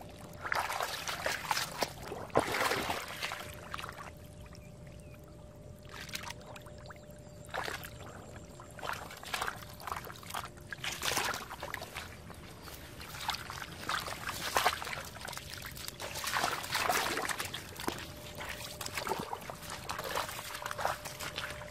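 Bare hands digging and scooping in wet mud and shallow water, squelching and splashing in irregular bursts.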